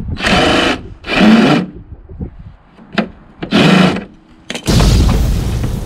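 Cordless impact driver running on the bolts of a snowblower's plastic side cover: three short bursts, then a longer run of about two seconds near the end, backing the bolts out to take the cover off.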